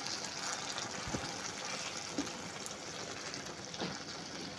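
Chicken in a thick masala sizzling steadily in a nonstick pan as it is fried uncovered, stirred with a wooden spatula that knocks softly against the pan a few times.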